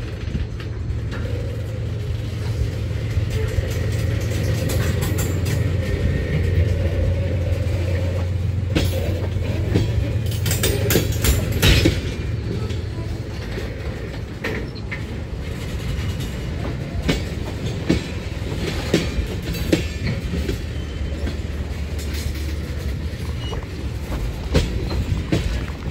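Diesel locomotive running while freight cars roll slowly during a yard switching move, with a steady low engine drone. Wheels click over rail joints, and there are sharp metallic clanks, busiest around ten to twelve seconds in.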